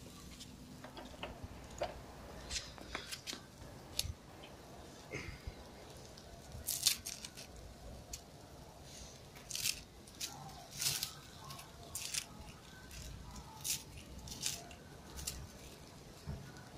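A knife scraping and pushing charred grilled pieces along a flat metal skewer: a run of short, sharp scrapes, roughly one a second, the loudest about seven seconds in.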